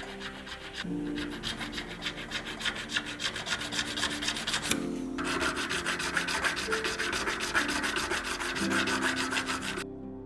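Hand file rasping on metal in fast, even strokes, with a short pause about halfway and stopping shortly before the end, over soft background music.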